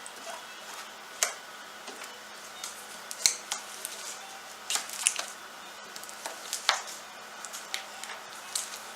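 Scattered small clicks, taps and scrapes of hand work on fabric as silicone is worked into a pair of cotton pants, the sharpest click about three seconds in, over a steady faint background hum.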